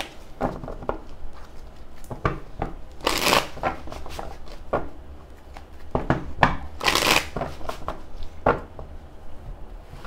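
Tarot deck shuffled by hand: a run of short card slaps and flutters, with two longer, louder riffles about three seconds and seven seconds in.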